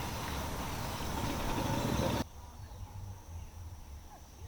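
Steady high-pitched insect chirring, with a loud rushing noise over it for the first two seconds that cuts off abruptly.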